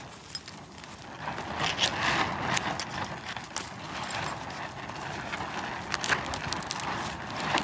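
Knife blade scraping the singed, charred skin of a goat's head in repeated short, rough strokes, cleaning off the burnt hair.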